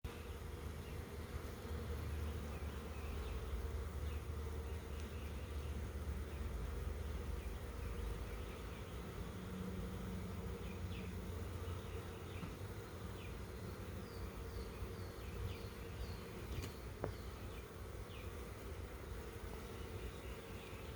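Honey bees buzzing steadily. A run of faint high chirps and one sharp click about 17 seconds in sound over the buzz.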